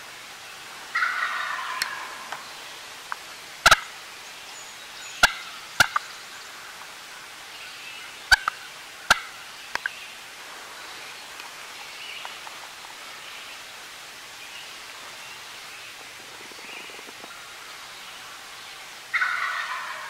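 A tom turkey gobbling twice: a rattling gobble about a second in, and another near the end. Between them come several sharp clicks.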